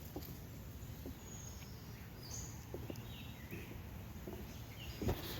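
Faint outdoor ambience: a few short, high bird chirps scattered over a low steady rumble, with some soft taps.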